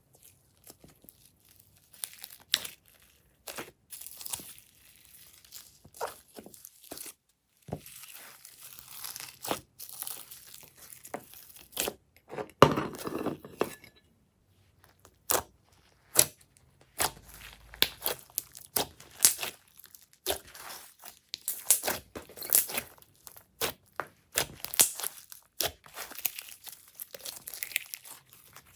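Glossy slime being squished, stretched and folded by hand, making irregular sticky clicks and pops. There is a longer, louder squish about twelve seconds in.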